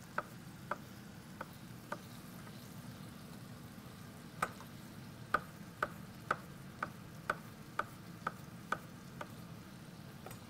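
Chef's knife slicing white button mushrooms on a wooden cutting board: a run of sharp knife taps on the board, about two a second, with a pause of about two seconds after the first few.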